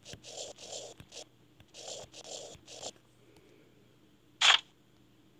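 Stylus scratching across a tablet's touchscreen while numbers are handwritten, in two runs of four or five short strokes. A single louder short rasp comes near the end.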